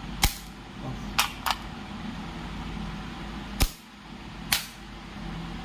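Toggle mechanism of a 100 A four-pole moulded-case circuit breaker snapping as its handle is switched on, tripped and reset to test the reassembled trip section. Five sharp clicks, the loudest about a quarter second in and again about three and a half seconds in.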